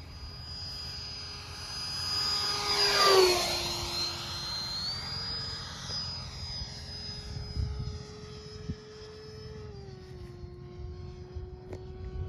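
Freewing F5 Tiger electric ducted-fan RC jet, fitted with a 12-blade fan, flying past with a hairdryer-like whine. The whine is loudest and drops in pitch about three seconds in as the jet passes close, then runs steadier as it flies on, dipping slightly in pitch near the end. It sounds sickly because the 12-blade fan does not suit this motor.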